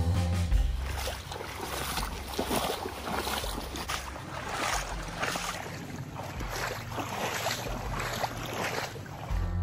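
Wind buffeting the microphone, with irregular swishing and splashing of boots walking through a waterlogged, grassy trail.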